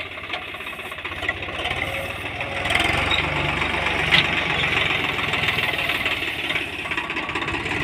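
Swaraj 742 XT tractor's three-cylinder diesel engine running steadily under load while pulling a cultivator, with a rapid even pulse, growing louder about three seconds in as the tractor comes close.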